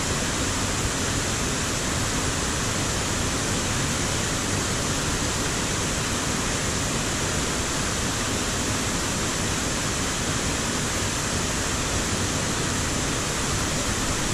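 Small mountain-stream waterfall cascading into a rock pool: a steady, unbroken rush of falling water.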